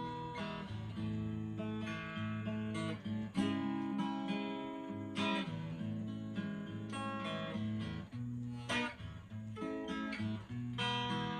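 Acoustic guitar strummed in an instrumental break of a song, chords changing every second or so with no singing.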